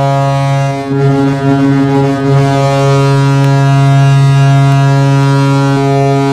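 Toronto Maple Leafs goal horn sounding one long, steady, deep blast, like a ship's horn.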